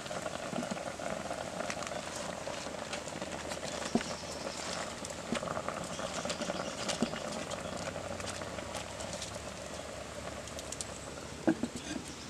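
Broth simmering and bubbling in an open clay pot, with scattered small clicks and taps as vegetables are dropped in. A clay lid knocks onto the pot's rim near the end.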